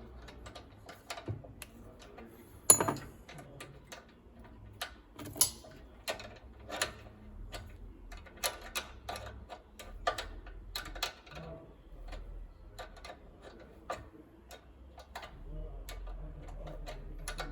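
Irregular metal clicks and taps of a spanner working a nut loose on a floor sander's tension-roller mounting, with one louder metallic knock about three seconds in.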